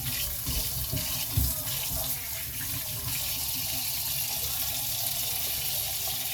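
Kitchen sink tap running, a steady rush of water into the sink, with a few light knocks.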